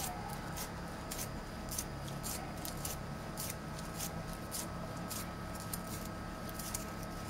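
Wooden pencil being twisted in a small handheld sharpener, its blade shaving the wood in short scraping strokes about twice a second.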